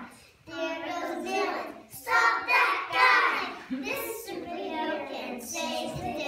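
A group of young children singing an action song together.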